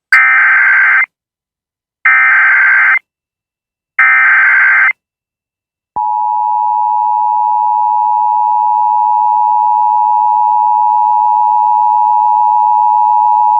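Emergency Alert System SAME header: three one-second bursts of warbling digital data tones, about a second apart. About six seconds in, the steady two-tone EAS attention signal starts and holds, announcing that an alert message is about to follow.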